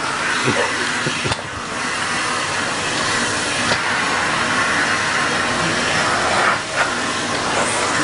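Vacuum cleaner running with a steady hiss, its floor nozzle working over the floor, dipping briefly about a second in and again near the end.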